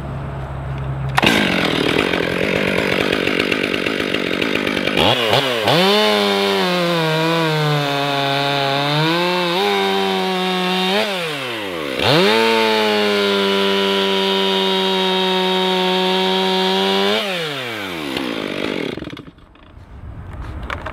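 Stihl 500i chainsaw with a freshly sharpened chain, revved to full throttle about a second in and bored into a red pine log: the engine pitch drops and wavers as the chain bites, dips sharply near the middle and climbs back, then falls away to idle a few seconds before the end.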